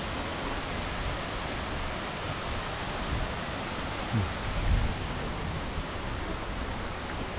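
Fountain water splashing and falling in a steady, even rush, with a couple of low bumps a little past halfway.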